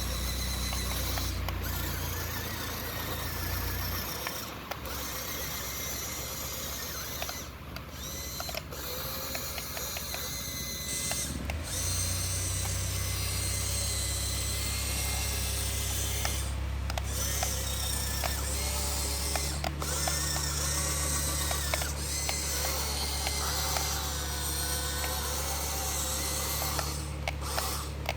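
Kubota DC-105X combine harvester running, a steady low engine hum under a dense mechanical clatter and ticking from its working parts. The engine note shifts a few times.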